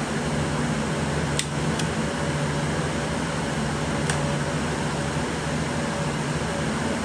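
Steady whir of cooling fans with a low hum underneath. A few light clicks and taps of hard parts being handled cut through it, two about a second and a half in and one about four seconds in.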